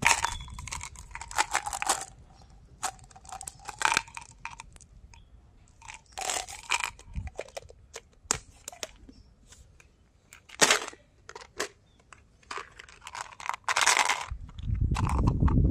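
Plastic Mentos candy containers being handled and opened by hand: a run of sharp clicks, taps and short rattles. A thin squeak runs through the first few seconds as the pink lid of a tub of Mentos chewy dragées is pried off, and a low rumble of handling comes in near the end.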